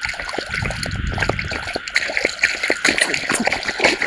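Shallow paddy water dripping and trickling with small splashes as it is disturbed, the splashing loudest near the end.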